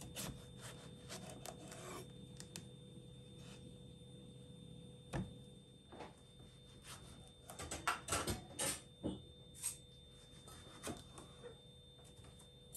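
Kitchen knife cutting through a fruit on a wooden cutting board: scattered knocks and scrapes of the blade on the wood, with a quick cluster of knocks about two-thirds of the way through.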